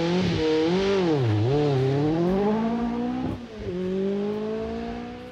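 Peugeot 205 T16's turbocharged four-cylinder engine revving up and down, then accelerating in one long steady climb in pitch from about three and a half seconds in.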